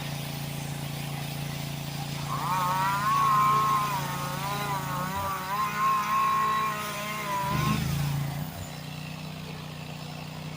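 A small engine running steadily with a low hum. From about two seconds in to nearly eight, a louder, wavering whine rises over it and then stops.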